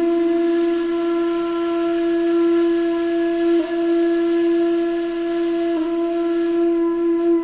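A flute-like wind instrument holding one long steady note, with two brief wavers, one about halfway through and one later on.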